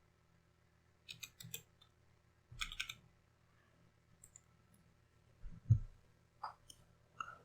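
Faint, scattered computer mouse clicks, a few at a time, with one soft low thump about five and a half seconds in.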